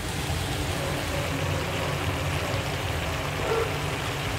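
Creamy chicken pie filling of milk and egg simmering in a pan, left to reduce: a steady bubbling sizzle over a low, even hum.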